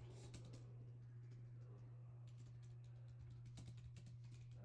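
Faint typing on a computer keyboard: quick keystrokes in a few short runs, over a steady low electrical hum.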